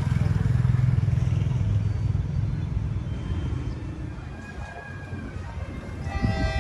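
Diesel locomotive's low engine rumble, loudest in the first couple of seconds and fading away, then a short horn blast near the end.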